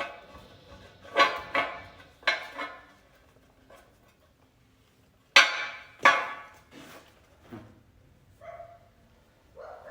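Hammer blows ringing on steel, mostly in pairs, about seven strikes with the loudest two around five and six seconds in, typical of driving an old bushing out of a control arm.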